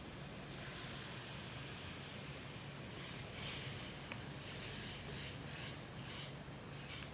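Whipping cream poured into a hot pan of sautéed onion and garlic, hissing and sizzling as it hits the oil. The hiss comes up about half a second in and wavers in strength in the second half.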